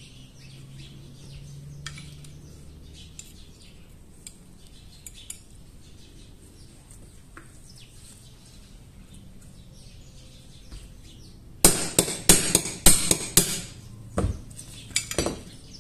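Small hammer tapping a pin punch to drive a pin out of a Beretta 950 pistol frame: about a dozen sharp metallic taps in quick groups over the last four seconds. Before that, only faint clinks of small steel parts being handled.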